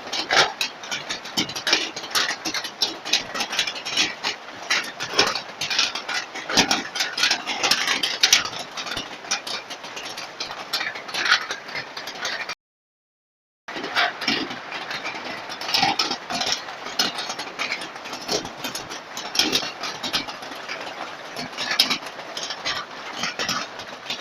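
Heavy rain falling, a dense run of irregular drop hits with frequent louder ones. It breaks off into about a second of silence near the middle, then resumes.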